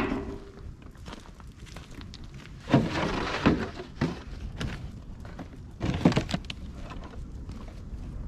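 A loud thud as a cardboard box is shoved into a steel 55-gallon drum burn barrel. It is followed by two spells of crunching and rustling about three seconds apart: footsteps on gravel and cardboard being handled.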